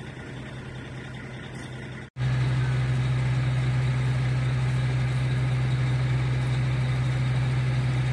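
Septic pump truck's engine running steadily with a low hum. It cuts out for an instant about two seconds in and comes back louder.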